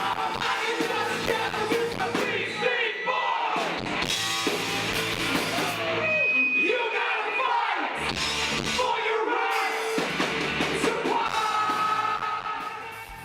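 Rock song with a singing voice over a full band.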